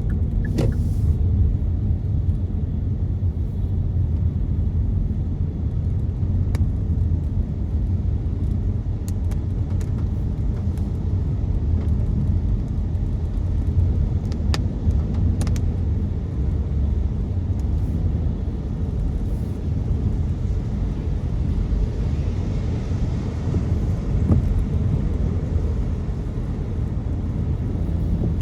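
Steady low rumble of a car driving on a wet road in the rain, heard from inside the cabin, with a few scattered sharp ticks.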